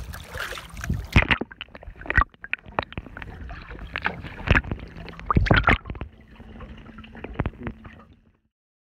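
Water splashing as a phone camera is dipped at the surface beside a boat, then muffled underwater sound: gurgles, bubbles and sharp knocks from a pike and the angler's hands moving in the water. The sound cuts off about eight seconds in.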